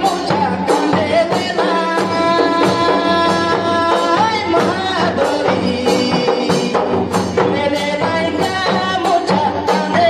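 Folk dance music: two-headed barrel drums beating a steady rhythm under a sustained melody, with singing.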